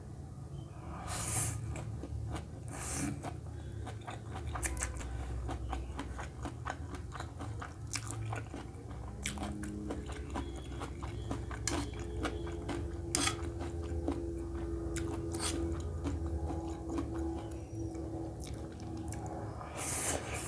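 Close-miked eating sounds of stir-fried noodles being eaten with a fork: wet chewing with many small mouth clicks throughout, and a few longer slurps of noodle strands near the start and near the end.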